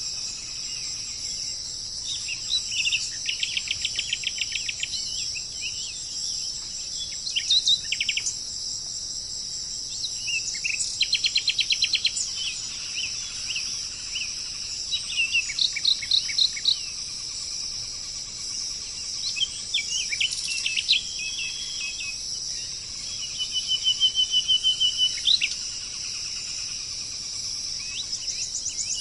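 Songbirds singing in repeated bursts of rapid trills and short sharp notes over a steady, high-pitched insect drone that never lets up.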